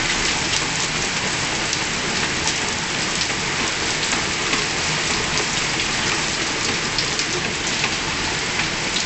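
Heavy rain pouring steadily onto flagstone paving, with many distinct drop hits close by.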